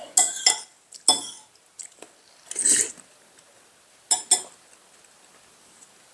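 Tableware sounds at a meal: a few sharp clinks of utensils against ceramic bowls and glasses, a pair of them close together about four seconds in, and one longer noisy sound about two and a half seconds in.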